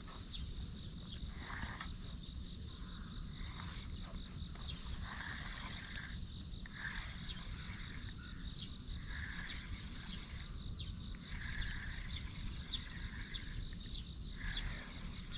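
Outdoor summer ambience: insects chirping steadily with fine rapid ticks, and short bird calls repeating every second or two, over a low steady background rumble.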